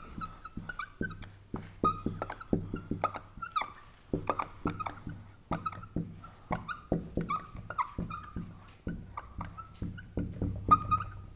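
Dry-erase marker squeaking and ticking on a whiteboard while words are written, in a quick, uneven run of short squeaky strokes.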